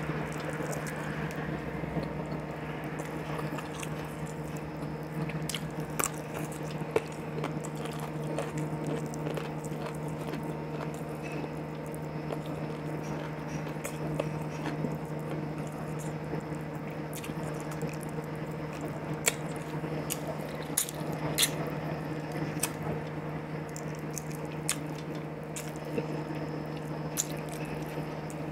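Close-miked chewing, lip smacks and wet squishes of a man eating boiled chicken with his fingers and pulling meat off the bone. Scattered sharp clicks stand out over a steady low hum.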